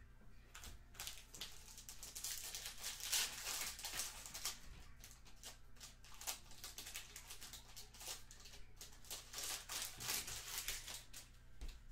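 Glossy trading cards being flipped through by hand: a run of quick crisp flicks and paper-like rustles, busiest a couple of seconds in and again near the end.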